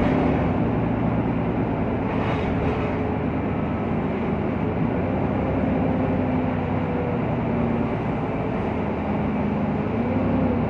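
Cabin noise of a VDL Citea LLE city bus under way: its natural-gas Cummins engine and drivetrain run with a steady rumble, and the engine note drifts gently up and down with speed. There is a brief hiss about two seconds in.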